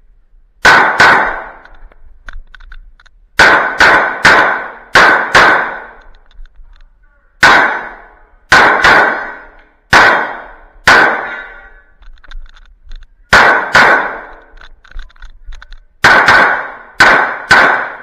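CZ P-10 C pistol fired rapidly: about twenty shots, mostly in quick pairs, in several strings with short pauses between them as the shooter moves between positions. Each shot is sharp and followed by a ringing echo off the enclosed range.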